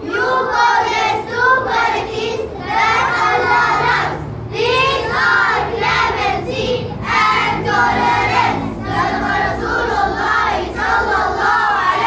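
A group of schoolchildren's voices in unison, delivered in short phrases with brief pauses between them.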